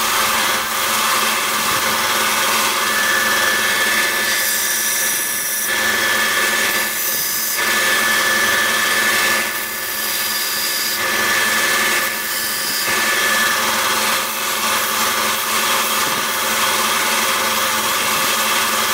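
Ryobi belt sander running steadily while a steel batarang is pressed to the belt, grinding the paint off its bevel. The grinding comes in about four spells between about four and thirteen seconds in.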